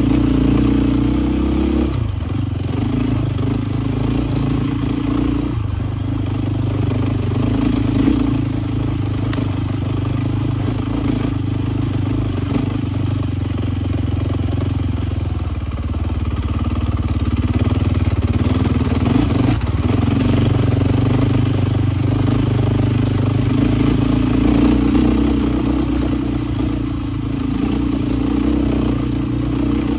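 Dual-sport motorcycle engine running under way on a rough dirt trail, its note rising and falling as the throttle is worked.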